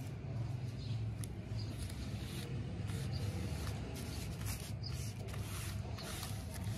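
Thin kite paper being folded, rubbed and pressed flat by hands, making soft crinkling and rustling with small ticks, as its edge is pasted down over the bamboo frame. A steady low hum runs underneath.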